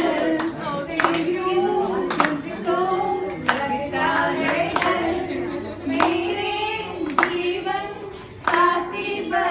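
Voices singing a song, with hands clapping along in time, about one clap a second.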